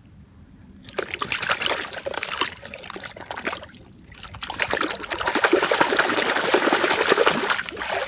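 Muddy water splashing and sloshing in a plastic tub as a small toy dump truck is swished and dunked through it by hand, starting about a second in, dipping briefly midway, then louder in the second half.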